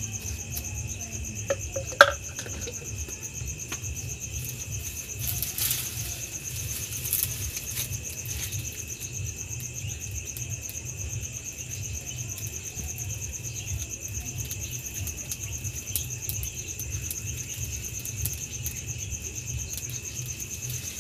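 Crickets chirping in a steady high-pitched trill, with a sharp crack about two seconds in and a few light knocks as dry twigs are broken for the stove fire.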